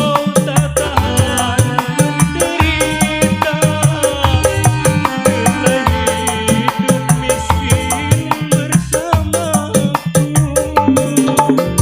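Dangdut koplo music played on a single keyboard (orgen tunggal). A fast, even kendang-style drum rhythm runs under a keyboard melody, in an instrumental passage with no singing.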